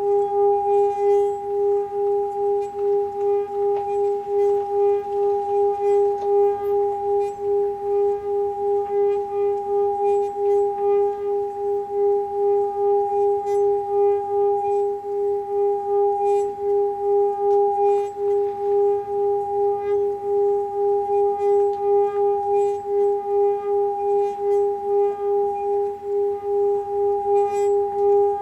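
Seven-chakra metal singing bowl rubbed around its rim with a covered striker, singing a steady tone with a second tone an octave above it, wavering a few times a second.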